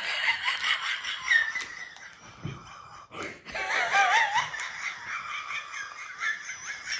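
A woman laughing and giggling in several short bouts.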